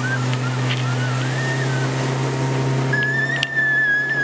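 Suzuki 90 hp outboard motor running steadily at speed, a low drone under wind and water rush. Over it is a high wavering tone that glides up and down, with one long held note near the end.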